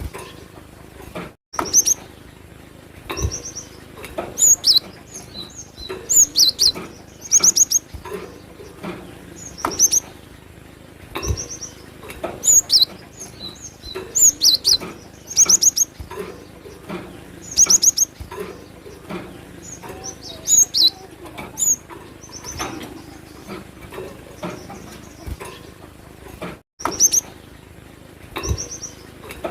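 Cinereous tit (gelatik batu) singing: short bursts of rapid, high, sharp chirping notes, repeated every second or two.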